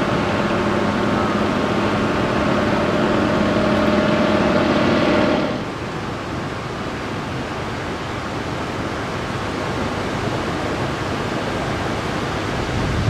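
Propeller biplane's piston engine droning steadily overhead, cut off abruptly about five and a half seconds in. After that, an even rush of wind on the microphone and surf.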